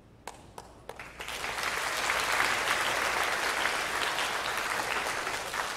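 Audience applauding: a few scattered claps, then steady applause from about a second in.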